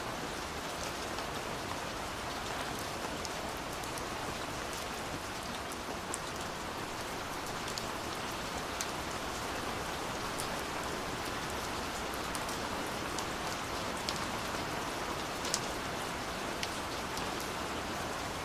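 Steady rain falling, with individual drops ticking sharply now and then over an even hiss.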